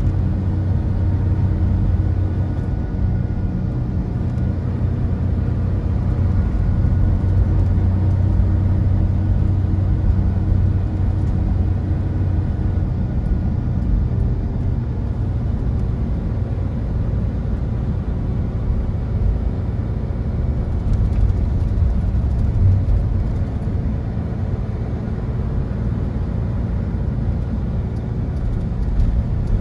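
Mercedes-Benz Tourismo coach under way, heard from inside the cabin: steady diesel engine hum and road rumble. The engine's hum is strongest in the first half and drops back about halfway through.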